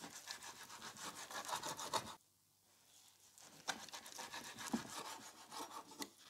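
Chef's knife sawing back and forth through a cooked steak and scraping on a wooden cutting board, a faint rapid rasping of strokes. It breaks off abruptly about two seconds in, then resumes more slowly with a few sharp ticks of the blade on the board.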